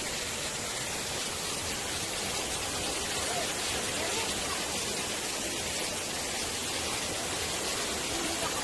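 Waterfall pouring down a narrow rock chute into a pool, a steady even rush of water.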